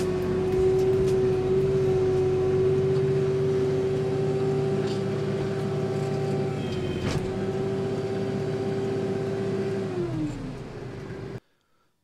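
Kubota tractor's diesel engine running steadily under the snowblower, with a few light knocks. About ten seconds in, its pitch drops as it winds down, then the sound cuts off.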